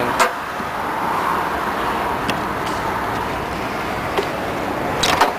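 Small plastic clicks and knocks from hands and a prying tool working a headlight's bulb socket and housing: one sharp click right at the start, a few faint ticks, and two or three quick clicks near the end, over steady background noise.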